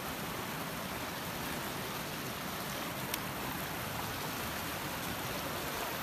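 Steady rush of a mountain river flowing strongly, with one faint click about three seconds in.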